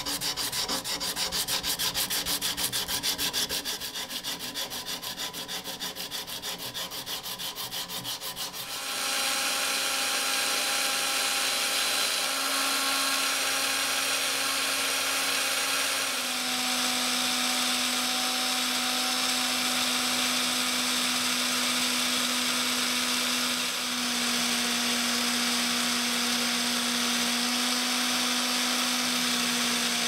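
Hand sanding with rapid back-and-forth scraping strokes. About nine seconds in, a cordless drill clamped in a vise starts running steadily, spinning a small metal pin that is polished against sandpaper with a gritty hiss. The drill's whine shifts slightly in pitch a few times.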